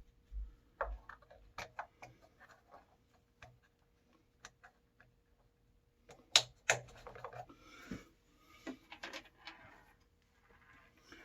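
Irregular clicks and knocks of tools and parts being handled, with two sharp knocks a little over six seconds in.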